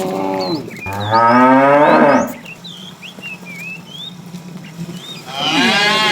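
Cattle mooing: one moo tails off at the start, a long loud moo comes about a second in, and another near the end. Small birds chirp between the moos.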